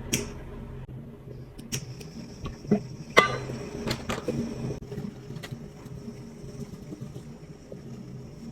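Scattered clicks and knocks of things being handled, the loudest a little after three seconds, over a steady low hum and a faint high whine that comes in about two seconds in.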